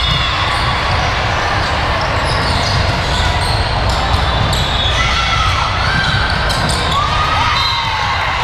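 Indoor volleyball play in a gym: the ball being struck and bouncing, with short squeaks like sneakers on the court floor late on, over steady spectator chatter in a large echoing hall.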